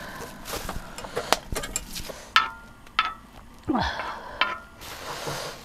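A spatula stirring and scraping doenjang sauce in a frying pan on a gas camp stove, with a string of taps and two short ringing clinks against the pan.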